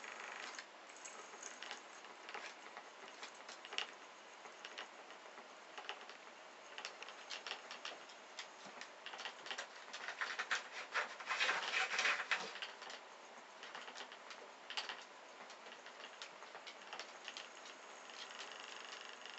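A cat moving about on a towel and a wooden floor: irregular light taps, scratches and clicks, with a busier, louder stretch of clatter about ten to twelve seconds in.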